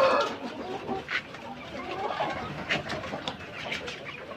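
A flock of Rainbow Rooster chickens clucking while feeding, with a loud call right at the start and scattered sharp taps through the rest.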